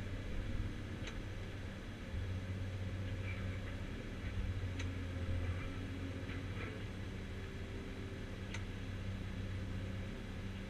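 Caterpillar 345C UHD demolition excavator's diesel engine running steadily, heard from inside the cab, with a handful of sharp clicks a few seconds apart.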